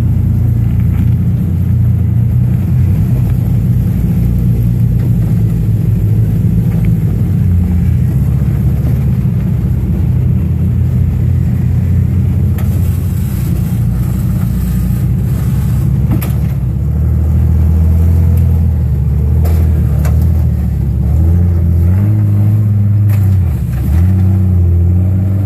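Engine of a lifted Jeep Cherokee pulling at low revs as it crawls up a rock ledge. The revs rise and fall in the second half, with a brief dip near the end, and a few sharp knocks sound along the way.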